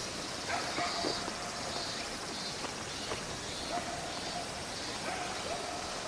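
Summer insect chorus trilling steadily, with a few short, steady, even-pitched calls about a second in, near the middle and near the end.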